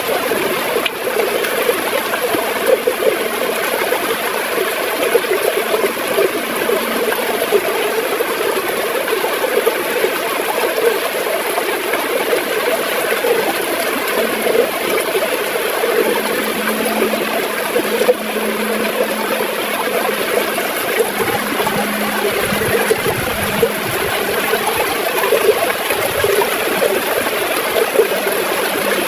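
River water gurgling and splashing steadily over rocks, a continuous bubbling rush.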